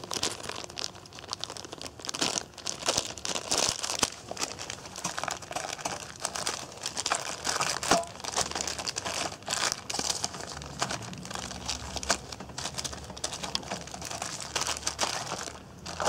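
Small fire of paper and tinder burning in a hollow in a block of ice, crackling with dense, irregular small pops and rustles.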